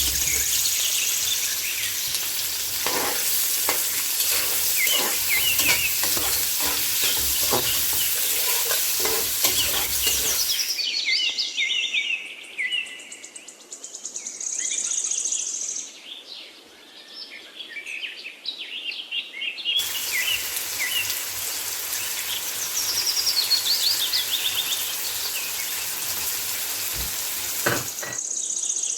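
Food sizzling in hot oil in a pan and being stirred, with scraping strokes through the hiss. It runs for about ten seconds, drops away for about ten, then sizzles again until near the end. Birds chirp in the background, plainest in the quiet middle stretch.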